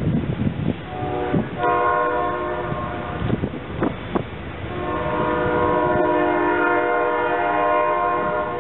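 Locomotive air horn sounding a multi-note chord: a blast of about a second and a half, then a longer blast starting about five seconds in. Low rumble and a few knocks from the train run underneath.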